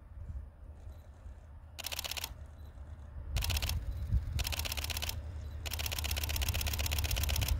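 A camera shutter firing in rapid bursts, four runs of fast clicking, the last about two seconds long. Beneath it is a low rumble that grows steadily louder as a Russell snowplow train approaches.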